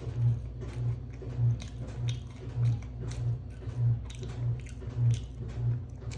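Close-miked chewing of crisp fried chicken, a low pulse with each bite of the jaw about every 0.6 seconds, with sharp crackles of the breading in between.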